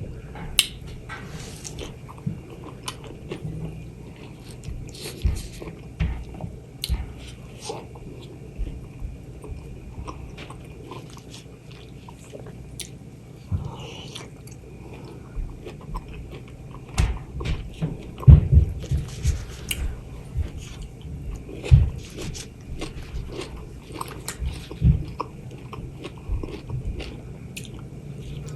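Close-miked mouth sounds of a person eating fresh mango: irregular wet bites and chewing, with a few louder bites in the second half.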